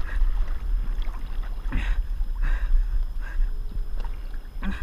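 Seawater sloshing and splashing right at a camera held at the sea surface, in short noisy swells about two seconds in and again half a second later, over a steady low rumble of wind buffeting the microphone.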